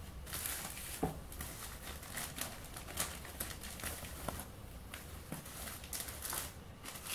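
Faint rustling and crinkling of a thin white packing sheet being pulled out of a cardboard mailing box, with a few light taps and clicks.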